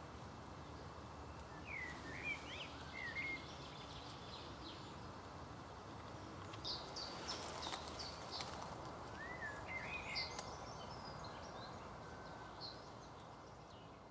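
Small birds chirping in a few short runs, some calls sliding in pitch and some short and high, over steady outdoor background noise.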